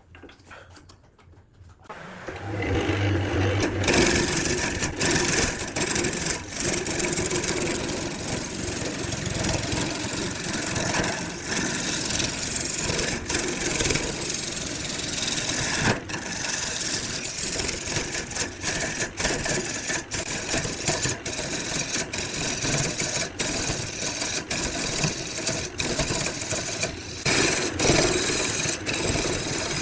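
Woodworking power tool running and working wood, starting up about two seconds in and then going on as a dense, steady noise broken by many brief dips.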